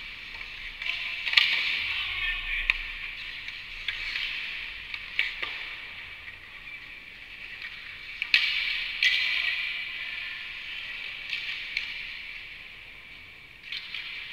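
Hockey skate blades scraping and carving on the ice, swelling and fading, with several sharp clacks of sticks and pucks; the loudest clacks come about a second and a half in and about eight seconds in.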